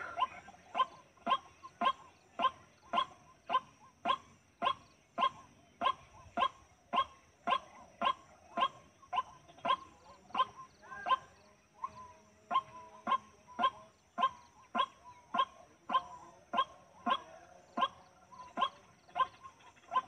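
White-breasted waterhen (dahuk) calling: a short, harsh note repeated evenly, nearly two a second, over a faint steady high whine.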